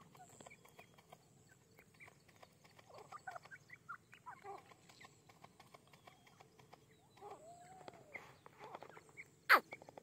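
Francolins (teetar) giving soft, scattered short chirps and clucks, with one drawn-out rising-and-falling call about seven seconds in. A single loud, sharp click about nine and a half seconds in is the loudest sound.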